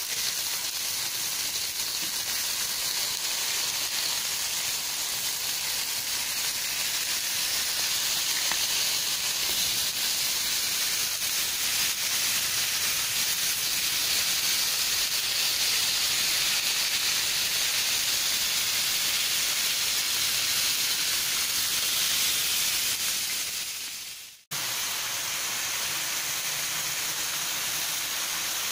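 Rib-eye steaks sizzling on a hot barbecue griddle plate: a steady loud hiss that breaks off for a moment about 24 seconds in, then carries on.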